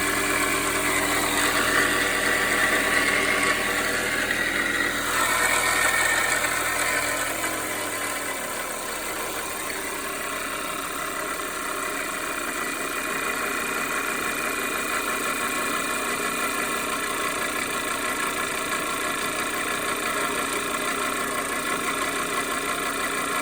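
2010 Audi A4's 2.0L turbocharged four-cylinder TFSI engine idling with a clanking, rattling noise, which the owner suspected was the timing chain, although the chain tensioner and upper chain measured within spec. About eight seconds in, the deep hum drops away and a thinner, steady running sound continues.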